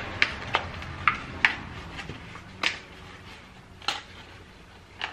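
Brown paper wrapping crinkling as a small package is pulled open by hand: about seven sharp, irregular crackles.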